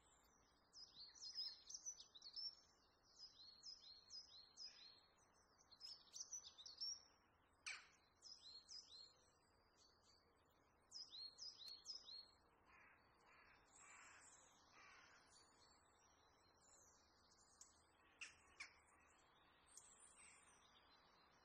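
Faint birdsong: rapid runs of short, high, falling chirps, with three lower, harsher calls about thirteen seconds in.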